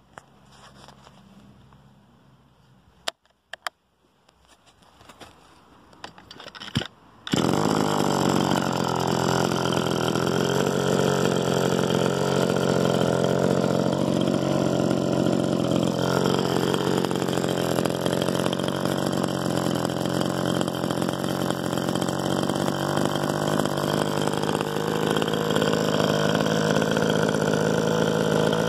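Stihl FS66 brush cutter's small two-stroke engine: a few knocks, then it catches suddenly about seven seconds in and runs steadily, the machine lying on the grass and not cutting.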